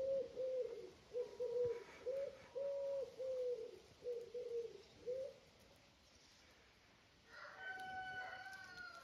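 A bird cooing: a run of about ten short, low notes in quick phrases for the first five seconds. Near the end comes a short, higher animal cry, falling slightly in pitch.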